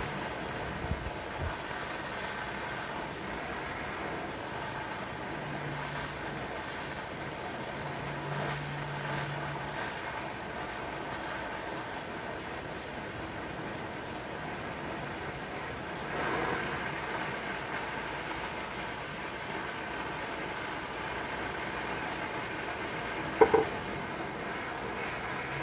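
Gas torch burning with a steady hiss as it heats the vise. Two sharp knocks near the end.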